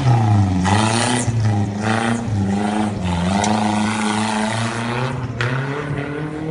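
A motor vehicle's engine running, its pitch rising and falling as it revs. Bursts of hiss come about a second in, again near two seconds, and briefly near the end.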